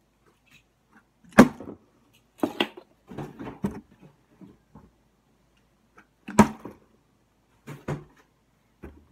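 Plastic water bottle being flipped and knocking down onto a hard surface: two sharp knocks about five seconds apart, each followed by a cluster of smaller knocks and rattles.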